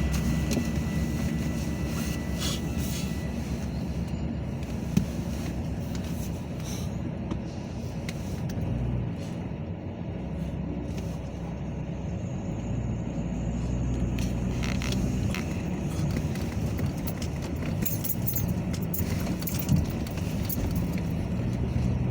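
Metra commuter train passing: a steady low rumble of wheels on rail with metallic rattling and jangling, and a sharp clank twice, about five seconds in and near the end.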